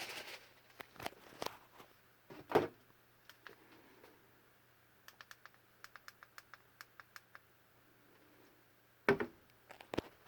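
Handling noise: a couple of soft knocks, about two and a half seconds in and again near the end, and in the middle a quick run of light, evenly spaced clicks or taps, about five a second for a couple of seconds.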